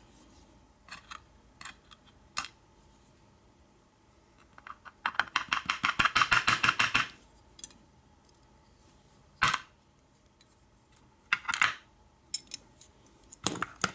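Small metal padlock parts clicking and rattling as the lock is taken apart and its pins come out: a few scattered single clicks, and a quick rattle of closely spaced clicks lasting about two seconds in the middle.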